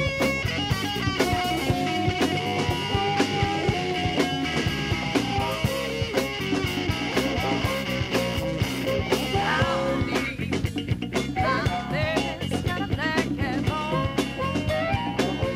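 Recorded rock song with guitar over a steady drum beat.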